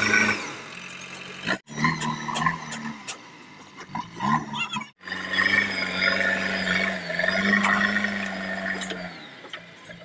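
A JCB 3DX backhoe loader's diesel engine running steadily as the machine drives and works. The sound breaks off abruptly twice, about a second and a half in and at five seconds, and the engine is loudest in the second half.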